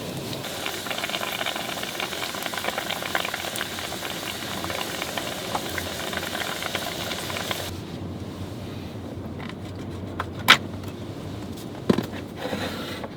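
Food frying on an electric grill plate, a steady sizzle with dense crackling. It stops abruptly about eight seconds in, followed by a few sharp clicks.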